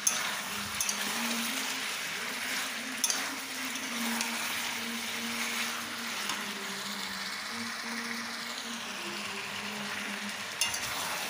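Chicken pieces sizzling in hot oil in a nonstick kadai as they are sautéed for a Bengali chicken-potato-cauliflower kosha, a steady frying hiss, with a few sharp clicks of the wooden spatula against the pan as it stirs.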